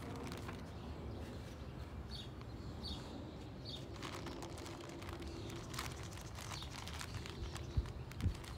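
Outdoor street ambience: a steady low rumble of traffic, with a bird chirping a few short times. There is light rustling and crackling as a bag of potting mix is worked open, and two low thumps near the end.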